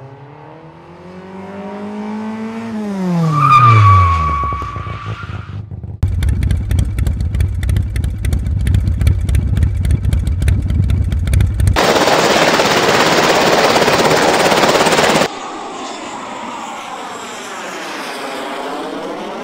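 Edited intro sound effects. A motor-like sweep rises, then falls steeply in pitch under a held high tone. Next comes a fast clicking rhythm over a deep bass beat, then a loud hiss for about three seconds starting some twelve seconds in, then a softer wavering sound.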